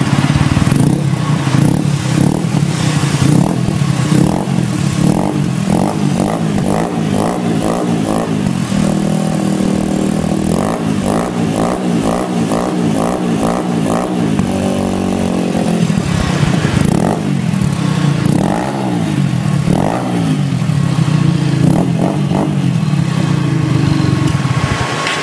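Dafra Apache 150's single-cylinder four-stroke engine running through a Roncar Coyote RS5 aftermarket stainless-steel muffler: it idles, with repeated quick throttle blips and, in the middle, revs that rise and fall several times.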